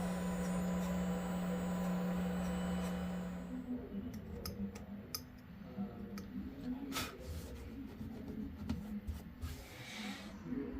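A CNC router running with a steady hum, then winding down and falling quiet about three to four seconds in; after that come only scattered light clicks and knocks.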